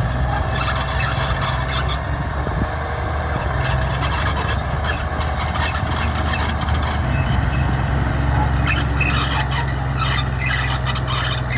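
D60 crawler bulldozer's diesel engine running steadily under a rasping squeal and scrape of its steel tracks, which comes and goes in bursts.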